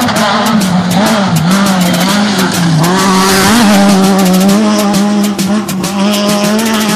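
Rally car engine held at high revs, its pitch dipping briefly a few times as the driver lifts or shifts, with a rapid crackle of clicks over it.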